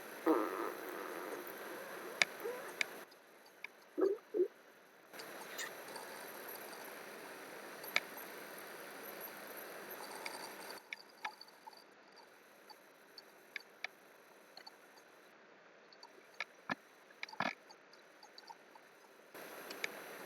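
Sparse sharp clicks and taps of a computer keyboard and mouse over faint microphone hiss that cuts out and comes back several times. Two brief low voice sounds come near the start and about four seconds in.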